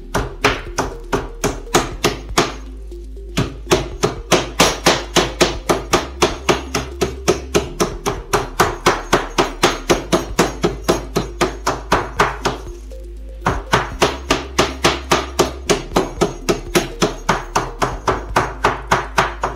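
Flat metal meat pounder beating turkey cutlets thin through plastic wrap on a cutting board: steady strikes about three a second, with a short pause about three seconds in and another about thirteen seconds in. Background music plays underneath.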